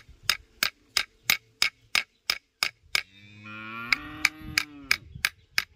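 A large machete-style knife chopping at a wooden stick held on a rock, in even strokes about three a second. From about three seconds in, a cow or ox lows once for about two seconds over the chopping.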